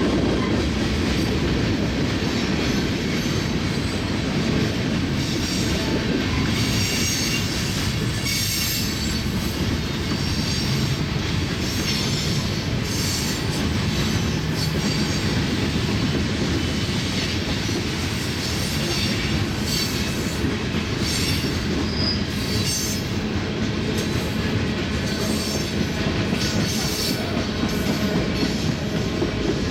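Freight train cars of a manifest train rolling past: a steady rumble of steel wheels on the rails, with short high-pitched wheel squeals coming and going through most of it.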